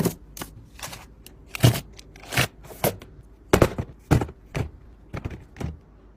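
About ten irregular knocks and clicks of containers and kitchen items being handled and set down, stopping shortly before the end.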